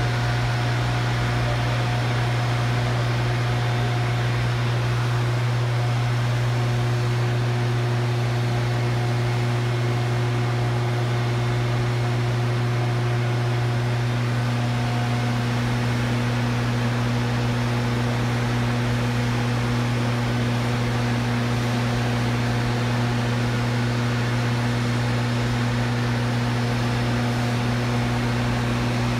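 Steady drone of running power-plant machinery in a turbine hall around a turbine-generator set. A constant low hum carries a few fainter steady tones above it that come and go, over an even hiss.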